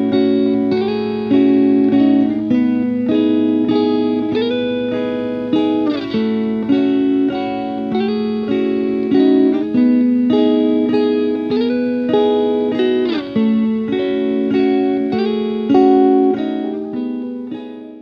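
Background music: a melody of plucked guitar notes.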